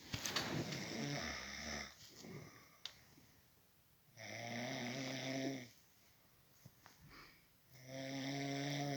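Snoring: three snores about four seconds apart, the first ragged and noisy, the next two steady with a low buzzing pitch.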